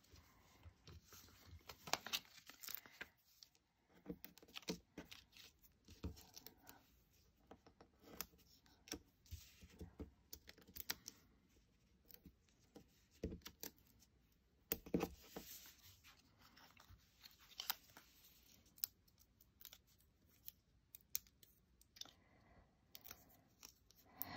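Faint, scattered crackling and clicking of foam adhesive dimensionals being peeled from their sheet and their backing paper pulled off, with light taps as they are pressed down.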